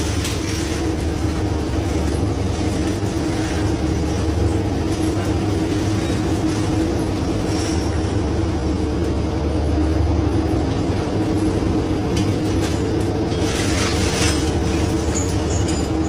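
Scallop dredger's engine running with a steady drone and hum. A few faint clicks and clatters come through, more of them near the end, as scallop shells are raked and handled on the deck.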